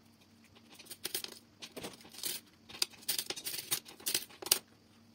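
Mirror glass being nibbled away with the notched head of a glass cutter: a series of sharp, irregular clicks and snaps as small pieces of an unclean break crack off the edge.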